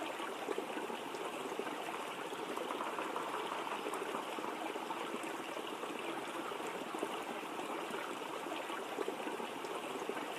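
Steady rush of water falling at a waterfall, an even hiss without breaks.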